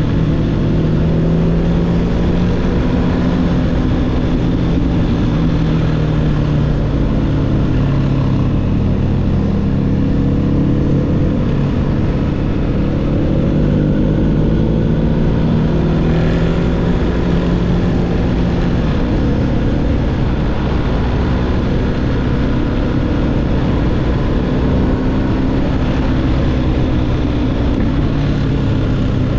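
BMW R1250GS boxer-twin engine running through an SC-Project SC1-R GT aftermarket exhaust under riding load, its revs rising and falling steadily as the bike is ridden along a winding road.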